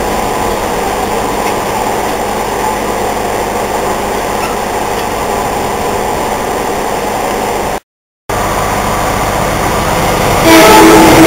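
Passenger train rolling past with steady rumble and diesel engine noise. About ten seconds in, a diesel locomotive horn starts sounding a loud, held multi-tone chord.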